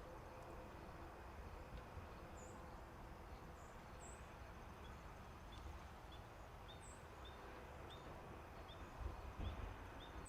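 Quiet outdoor ambience: a faint steady insect trill with scattered short, high bird chirps, and from the middle on a run of short chirps about two a second. A few low thumps sound near the end.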